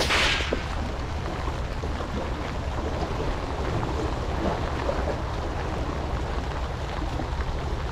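Strong wind on the microphone over the wash of the sea: a steady rush with a low rumble. A short hiss comes right at the start.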